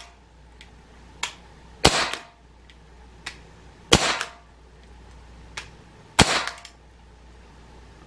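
Gamo PR-776 .177 CO2 air revolver fired three times, about two seconds apart, each sharp crack preceded by a faint click. The CO2 cartridge is running low, about 55 of 80 shots in.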